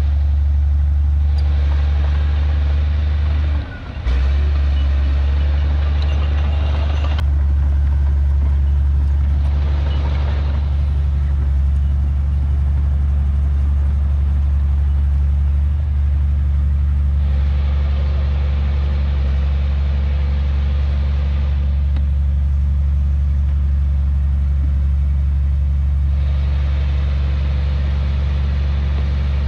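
Heavy diesel earthmoving machinery running steadily with a deep, even engine drone. Stretches of louder rattling, hissing noise come and go every several seconds, and the drone drops out briefly about four seconds in.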